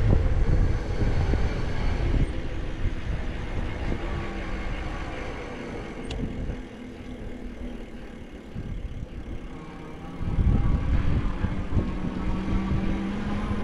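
Electric bike riding along a paved road: wind buffets the microphone with a heavy low rumble, under a faint steady hum from the bike's motor. The wind eases in the middle and picks up again about ten seconds in.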